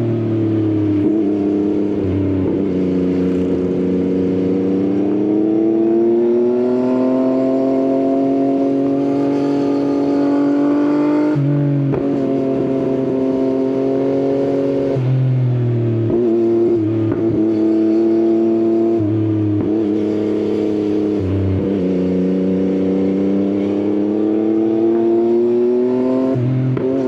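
Yamaha XSR900's three-cylinder engine through an Akrapovič exhaust, riding on and off the throttle: the engine note climbs and falls again and again, with sharp drops in pitch at gear changes, the clearest about eleven seconds in.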